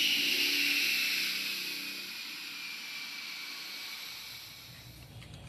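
Fighter jet engine whining with a rush of hiss, the whine falling slowly in pitch as it fades.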